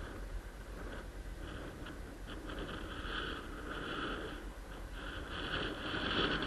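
Superpedestrian rental e-scooter in motion: a steady low rumble of wheels and wind, with a higher-pitched sound that swells and fades several times, louder in the second half.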